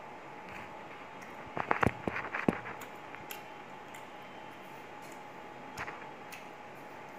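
Eating sounds from a person chewing a mouthful of khichuri eaten by hand: a quick run of sharp clicks and smacks about a second and a half in, lasting about a second, and one smaller click near the end, over a steady faint hum.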